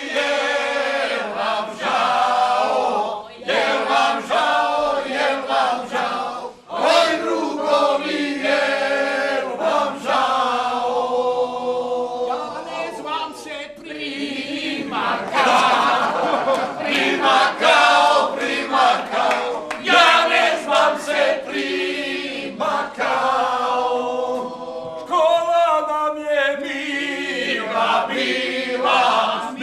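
A group of men and women singing an anthem together in a loose, unpolished chorus.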